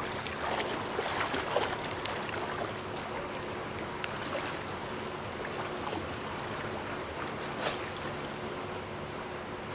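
Calm ocean water lapping and sloshing around a wading angler, with a few brief splashes, one near the end.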